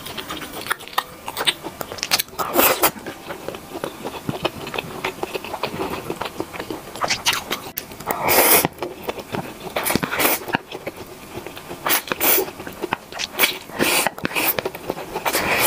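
Close-miked eating: fried instant noodles slurped into the mouth in several short noisy bursts, the loudest about eight and a half seconds in, with smaller wet chewing clicks between.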